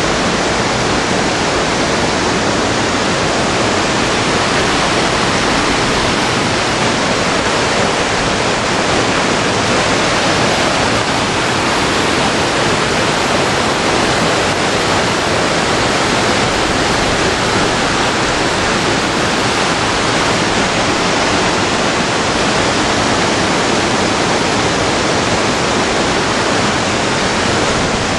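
A mountain stream rushing over boulders: a loud, steady rush of water.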